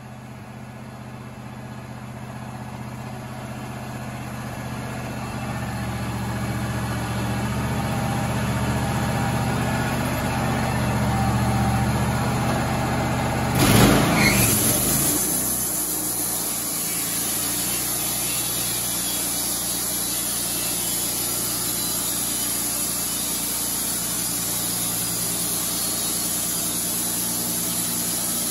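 Wood-Mizer LT35 band sawmill running, its engine getting steadily louder as the saw head comes along the carriage. About halfway through a sudden loud burst is followed by a steady high hiss over the engine as the band blade cuts a cedar cant into clapboard siding.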